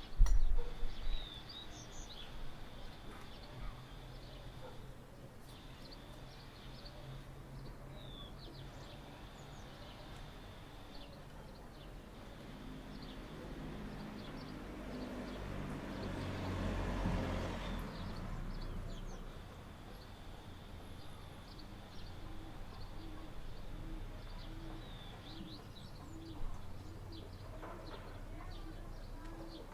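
Small birds chirping, with a dove cooing in a slow repeated rhythm in the second half. A broad rush of noise swells and fades in the middle, and there is a loud knock at the very start.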